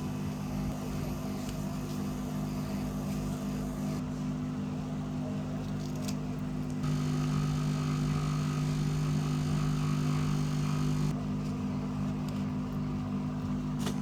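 Hot air rework station's blower running with a steady hum. From about seven seconds in to about eleven seconds in it grows louder and a higher whine joins it.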